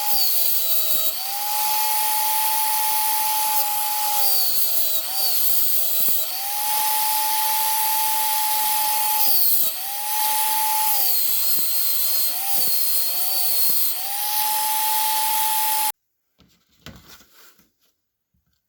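Small electric power tool running with a steady high whine, its pitch sagging briefly every few seconds as it is pressed against the workpiece, with a scratchy grinding noise over it. The tool is restoring an old, rusty screwdriver. The motor stops abruptly near the end, leaving a few faint knocks.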